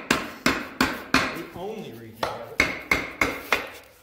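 Hand hammer striking the rusted brake assembly of a 1933 Ford banjo rear axle, about three blows a second, each with a short metallic ring. There is a short break a little after a second in, and the blows stop near the end. The blows are to free brake shoes that are rusted stuck.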